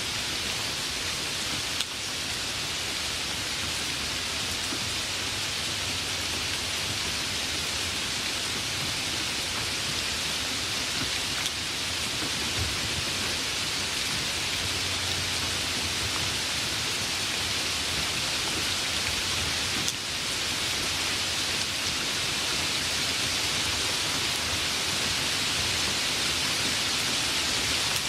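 Light rain falling: a steady, even hiss of many small drops.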